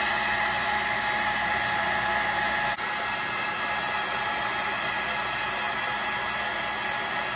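Handheld hair dryer running steadily: a constant rush of air with a steady high whine, dipping briefly about three seconds in.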